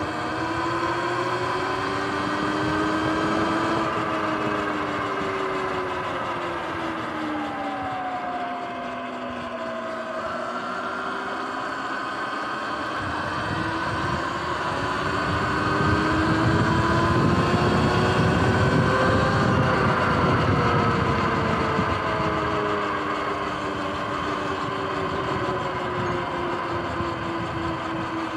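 Sur-Ron X electric dirt bike motor whining while riding, its pitch rising and falling with speed, over a low rushing noise that is strongest around the middle.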